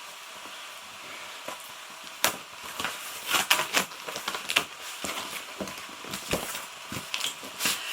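Cardboard box and packaging being handled: irregular crackling with scattered sharp knocks, starting about two seconds in.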